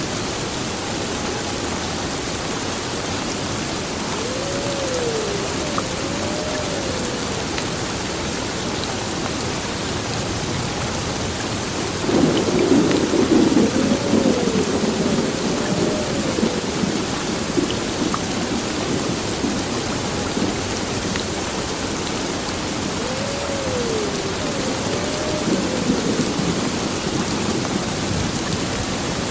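Heavy rain falling steadily on an old building, with a roll of thunder breaking in suddenly about twelve seconds in and rumbling on for several seconds.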